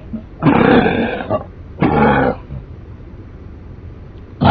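A man coughing twice: a long cough about half a second in, then a shorter one about two seconds in.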